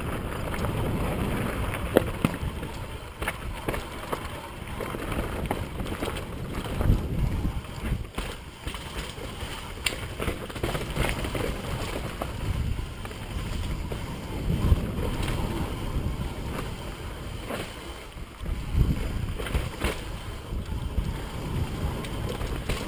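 Wind rushing over the microphone of a camera riding on a mountain bike speeding down a rough dirt trail, with the bike rattling and knocking over bumps and roots.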